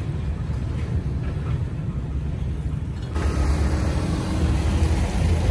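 Low engine rumble of a heavy dump truck driving away. About three seconds in, the sound jumps louder and brighter as a motorbike towing a loaded cart passes close, adding a faint steady engine whine.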